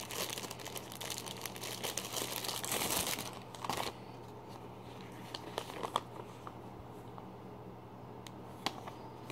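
Thin plastic wrapping crinkling and tearing as it is worked open by hand, dense for about the first three seconds. After that, only soft rustles and a few light clicks as the paper bags inside are handled.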